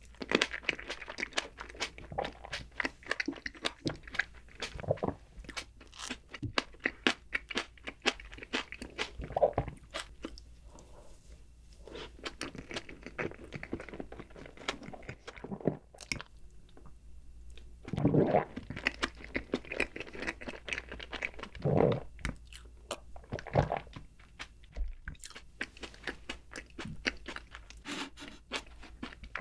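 Close-miked chewing and wet mouth sounds of a mouthful of berries and chocolate cake: many quick irregular smacks and clicks, with a few louder ones in the second half.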